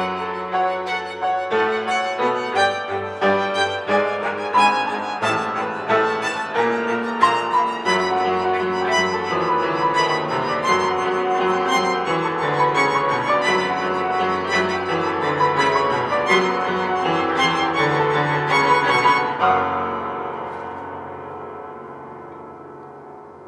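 Piano trio (piano, violin and cello) playing: repeated piano chords under held string notes. The playing breaks off about 19 seconds in, leaving a ring that fades away.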